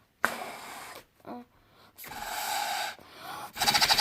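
Air being blown through a straw into thick slime: two hissing blows, then a rapid crackling near the end.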